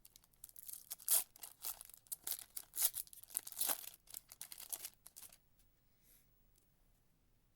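A foil trading-card pack wrapper being torn and peeled open by hand: a run of crinkly tearing that stops about five seconds in.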